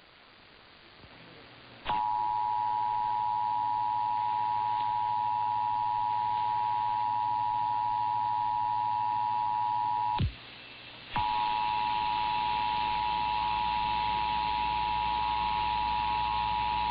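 Emergency Alert System attention signal: a steady two-tone alert starting about two seconds in. It cuts off with a click about ten seconds in, and after a brief gap the same two-tone alert starts again over a low hum.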